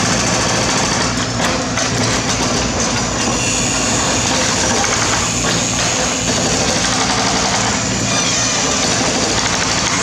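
Mini excavator's diesel engine running steadily.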